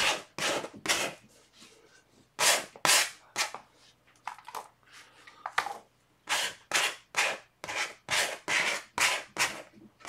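Plastic gift card scraping wet acrylic paint across a stretched canvas in short repeated strokes, used as a palette knife to lay colour without brush marks. The strokes come about two or three a second in the second half.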